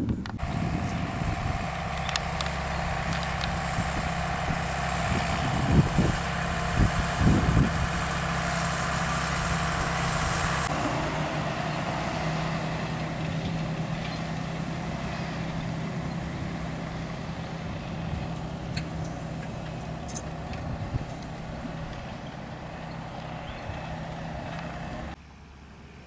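John Deere 6920S tractor's six-cylinder diesel engine running steadily under load while ploughing, with a high whine that stops about ten seconds in and a few thuds around six to seven seconds. The engine note fades as the tractor moves away and drops suddenly near the end.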